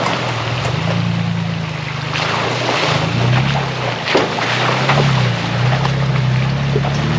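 Ford Bronco engine running through an AWE 0FG cat-back exhaust at low speed, the note rising and falling a few times with the throttle. Tyres splash and slosh through a muddy puddle, with scattered sharp splashes.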